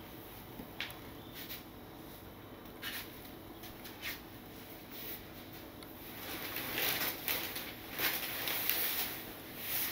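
Soft footfalls in socks on tatami with a few faint taps, then fabric rustling that grows louder from about six seconds in as a thin summer quilt is gathered up.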